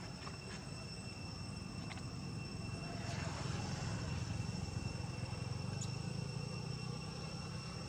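A distant engine drone, rising about three seconds in and easing off again, over steady high-pitched insect buzzing, with a few faint ticks.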